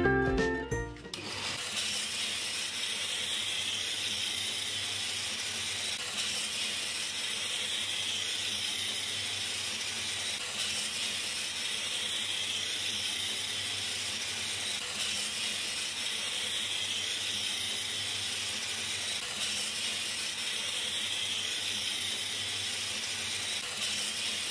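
A tinkling jingle ends about a second in, followed by a steady high hiss.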